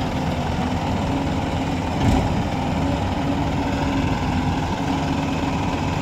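Diesel engines of a JCB 3DX backhoe loader and a farm tractor running steadily at low revs. One brief thump about two seconds in.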